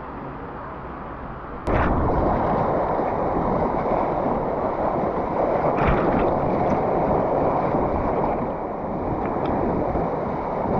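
Rushing creek water pouring down the natural sandstone water slide: a steady churning rush that turns suddenly louder about two seconds in.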